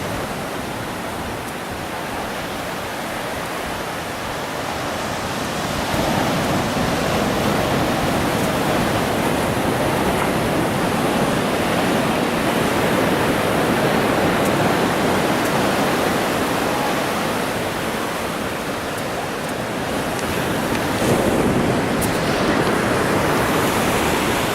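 Ocean surf breaking on a beach: a steady wash of noise that swells about six seconds in and again near the end.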